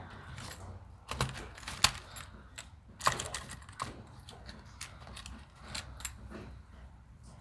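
Wires and small crimp connectors being handled: irregular light clicks and rattles as connectors and their insulators are worked onto the wiring harness.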